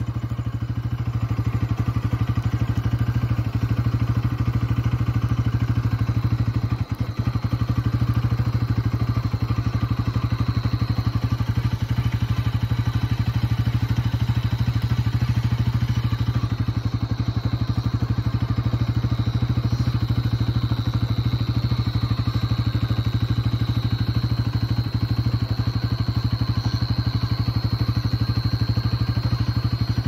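Motorcycle engine running steadily while riding along, with a constant low drone. A faint high, thin tone sits above it and grows a little stronger in the second half.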